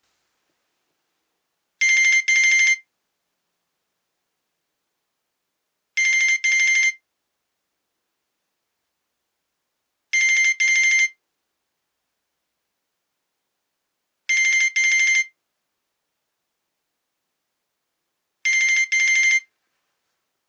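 Nokia E63 ringtone imitating a telephone bell: a trilling double ring, ring-ring, repeated five times about four seconds apart.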